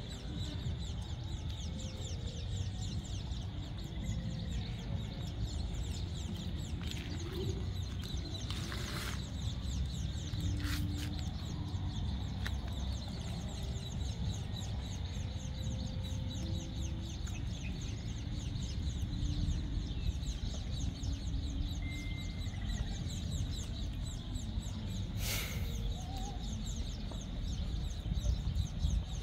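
Outdoor background of fowl clucking and small birds chirping over a steady low rumble, with two brief rustling noises, one about nine seconds in and one near the end.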